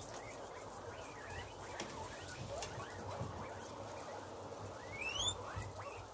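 A big group of guinea pigs eating chopped vegetables: steady munching and rustling with scattered short squeaks, and one louder rising whistle (a wheek) about five seconds in.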